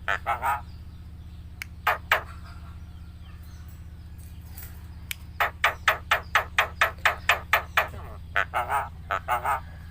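Javan myna (jalak kebo) calling and mimicking: a few short calls in the first two seconds, then a fast run of short notes, about six a second, for some two seconds, and a few voice-like syllables near the end. A steady low hum runs underneath.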